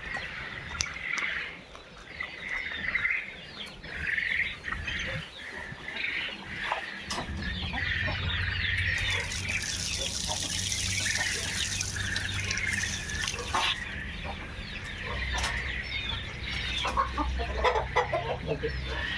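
Many birds calling in short, repeated chirps and clucks, with a steady low hum coming in about seven seconds in.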